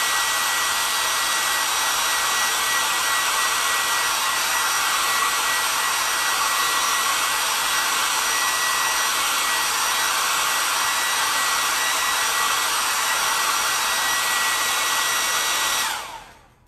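Handheld hair dryer running steadily, blowing on freshly applied chalk paste to dry it: an even rush of air with a steady whine over it. It switches off near the end, the whine falling away.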